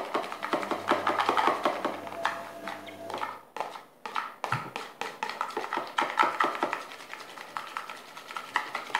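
Spoon stirring a thick shampoo-and-salt mixture in a plastic bowl: quick repeated clicks and scrapes, with a short pause about three and a half seconds in.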